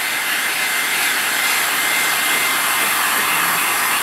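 Electric heat gun blowing steadily on a metal panel coated with liquid powder coat, heating the coating to gel state to cure it; a faint high whine rises over the airflow about midway.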